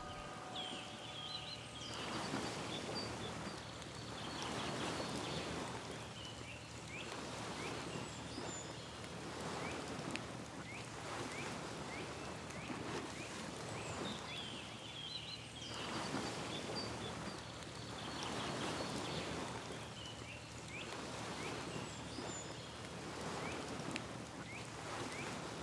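Outdoor shoreline ambience: water washing in swells that rise and fall every few seconds, with short high bird chirps scattered throughout. A gong's ringing fades out in the first two seconds.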